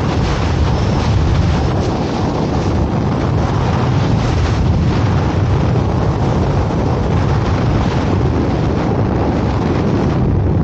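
Steady, loud wind noise buffeting a helmet-mounted camera's microphone in skydiving freefall. Near the end the highest part of the hiss thins slightly as the parachute opens and the airspeed drops.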